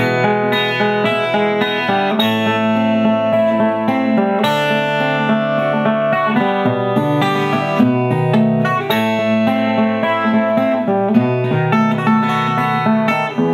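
Instrumental break of a Russian pop song's backing track, with guitar-like plucked string melody over sustained chords and no singing.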